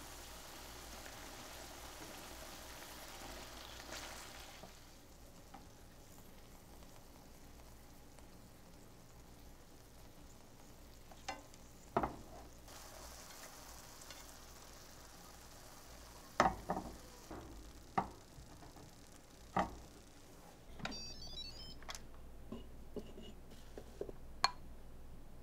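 Teriyaki sauce sizzling and simmering around eggplant planks in a stainless steel pan, the sizzle dying down after about five seconds. Then wooden chopsticks click sharply against the pan and eggplant half a dozen times. Near the end come a few short electronic beeps and light knocks.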